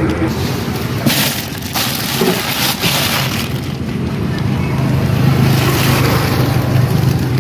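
Plastic bags rustling and ice blocks being knocked and shifted in a cooler box, over a steady low engine hum that grows stronger toward the end.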